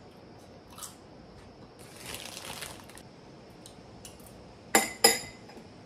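Eating at a table: a short crunchy chewing noise about two seconds in, then near the end two sharp clinks of a metal spoon against a ceramic bowl, each with a brief ring.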